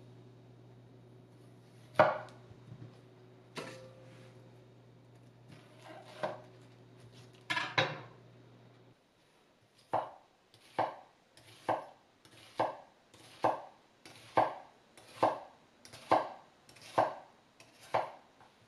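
Morihei Hisamoto INOX gyuto, a molybdenum-stainless chef's knife, cutting an onion on a wooden cutting board. There are a few separate cuts in the first half, the loudest about two seconds in. From about ten seconds in come about ten even slices, a little over one a second, each a short crunch that ends as the blade meets the board.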